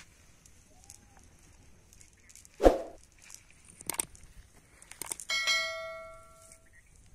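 Subscribe-button animation sound effects: a loud knock, a mouse click about a second later, then another click and a bell ding that rings out and fades over about a second near the end.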